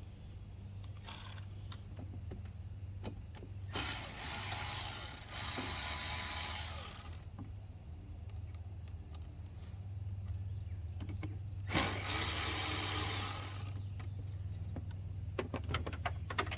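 Hand tools working on a pickup's intake: two spells of dense ratchet clicking, the first about four seconds in and the second about twelve seconds in, with scattered metal clicks and clinks, several close together near the end. A steady low hum runs underneath.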